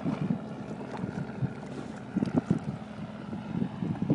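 Wind buffeting the microphone aboard a boat on open water: an uneven low rumble with irregular gusts.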